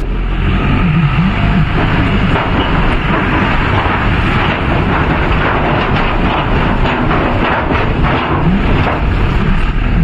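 Steady engine and road noise heard from inside a moving vehicle.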